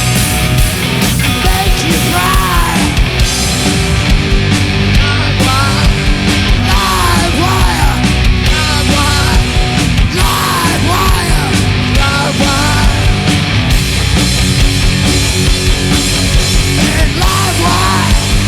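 Loud hard rock played by a band, with a singer's voice over drums and guitars.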